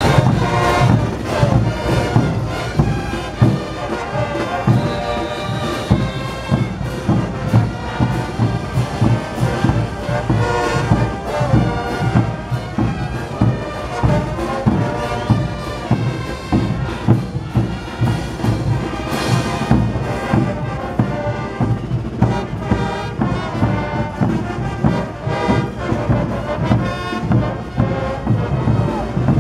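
Street brass band playing a morenada: brass melody over a heavy, steady drum beat.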